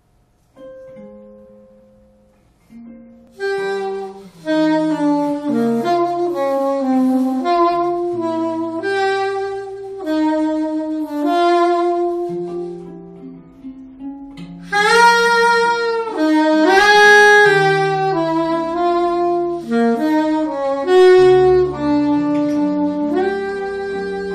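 Soprano saxophone and amplified guitar playing a live duo improvisation. A few soft guitar notes open it, the saxophone enters about three seconds in with a line of short, shifting notes, and the playing grows louder in the middle before settling on a long held note near the end.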